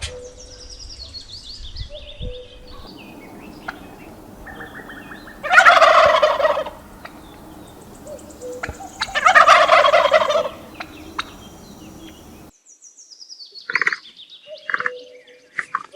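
Turkey gobbling: two loud, rattling gobbles about four seconds apart, with faint high chirps before them and a few short calls near the end.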